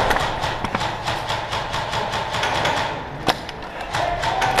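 Airsoft electric gun firing on full auto: a rapid run of clicks over a steady motor whine for about three seconds. A few separate sharp cracks follow near the end.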